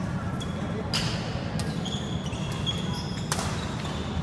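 Badminton play: a few sharp racket hits on a shuttlecock, the loudest about three seconds in, with short high squeaks of shoes on the court mat. A steady low hum of the hall runs underneath.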